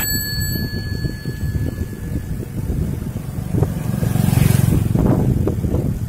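Wind buffeting the microphone of a moving bicycle, with low road rumble. A bell rings right at the start and its ring fades over about two seconds. The wind noise swells louder about four seconds in.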